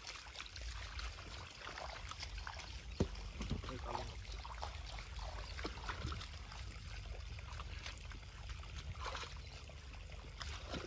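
Wet mud and muddy water squelching and sloshing as people wade and pack straw around a tractor wheel stuck in the mud, in scattered small splashes over a steady low rumble.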